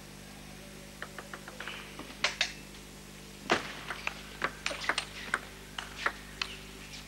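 Table tennis ball clicking: a few scattered taps at first, then from about three and a half seconds in a rally of bat hits and table bounces, roughly two sharp clicks a second.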